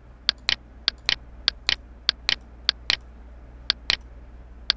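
A computer mouse being clicked again and again as points are placed, about six clicks with a short pause partway through. Each click is a quick double snap.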